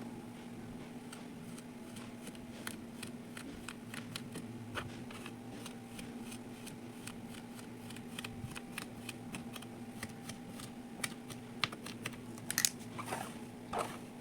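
Kinetic sand being pressed, cut and crumbled: a dense run of small crisp crackles and clicks, with a few louder crunches near the end. A steady low hum sits underneath.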